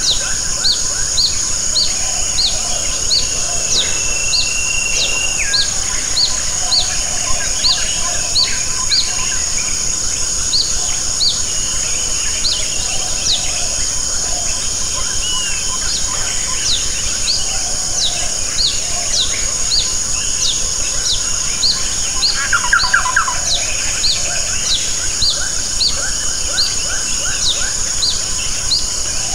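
Steady rain falling on leaves and roofs, an even hiss. Over it a bird repeats a short, high, rising chirp about twice a second, with a few pauses.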